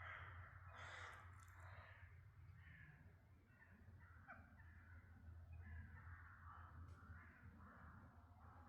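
Crows cawing faintly, call after call, over a low steady hum.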